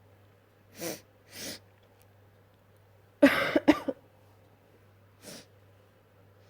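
A person's wet sneeze a little past the middle, loud and in two quick parts, preceded by two shorter sharp breaths and followed by a faint sniff or breath near the end.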